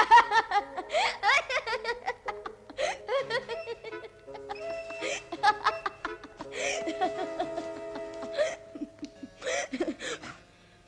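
Children laughing in several bursts over background music with held notes.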